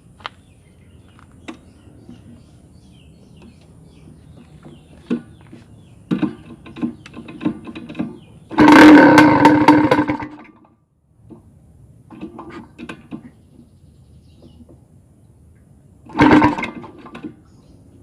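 Two-stroke Kawasaki Ninja RR 150 being started with its exhaust baffle cone and filter removed. After some sharp clattering it catches in a very loud blast lasting about two seconds and drops away, then fires again in a shorter loud burst near the end.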